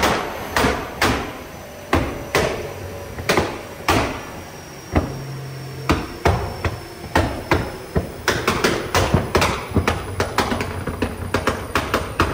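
Nissan R35 GT-R's twin-turbo VR38DETT V6 backfiring through its exhaust, a string of loud bangs as unburnt fuel ignites and shoots flames out of the tailpipes. The bangs come about a second apart at first, then crowd together, several a second, after about eight seconds, over the engine's low running.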